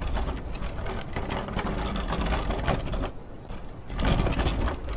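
Plastic wheeled trash bin rolling down a concrete driveway, its wheels rattling in a fast run of clicks over a steady low rumble, getting louder about four seconds in.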